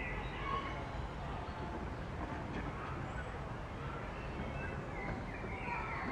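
Outdoor ambience: a steady wind rumble on the microphone, with birds chirping on and off, more of them near the end.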